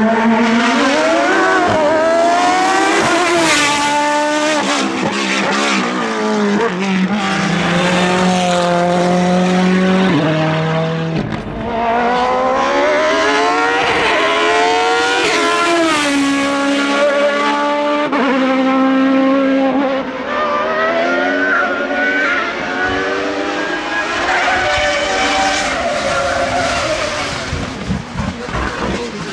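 Hillclimb sports-prototype race car's engine at full throttle, its pitch climbing through each gear and dropping sharply at every shift, lifting and picking up again several times for the bends.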